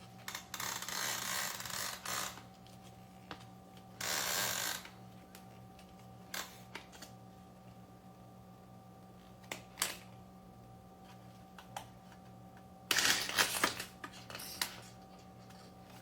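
Scattered clicks and knocks with three short bursts of hissing noise, over a steady electrical hum.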